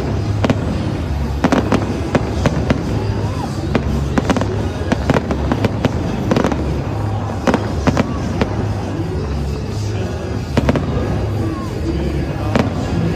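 Fireworks show: a rapid, irregular series of sharp bangs and crackling bursts going off throughout, with music playing underneath.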